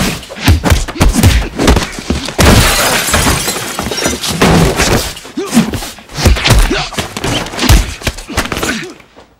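Fight sound effects: a rapid series of punches and body blows landing, with glass shattering for about a second and a half around two and a half seconds in, and grunts between the hits.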